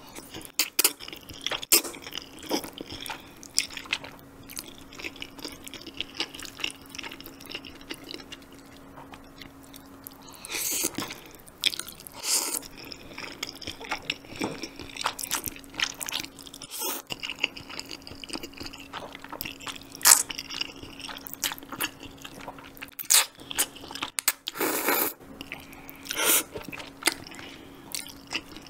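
Close-up eating of thick jjamppong noodles: wet chewing and mouth clicks, with a few longer, louder slurps as noodles are drawn in.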